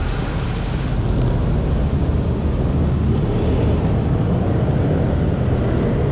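Steady vehicle noise, a continuous low rumble with a hiss above it.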